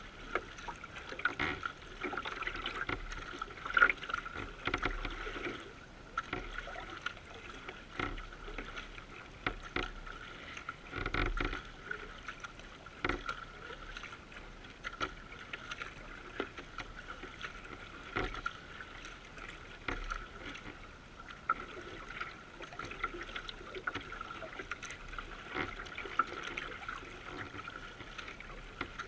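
Kayak gliding across calm water: water rushing and splashing along the hull at the bow, with the paddle blades dipping in about every one to two seconds.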